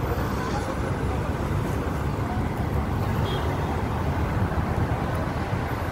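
Steady city street traffic noise: car engines and tyres of vehicles passing on a busy road, a continuous low rumble with no single event standing out.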